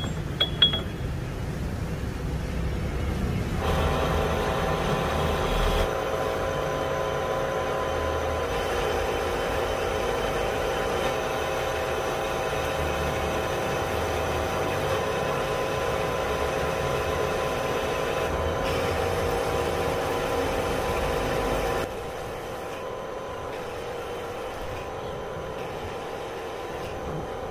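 Mitsubishi manual lathe running with a steady whine from its drive as an insert turning tool cuts down a steel bar. There are a few sharp metallic clicks at the start. About 22 seconds in the whine drops away, leaving a lower, quieter hum.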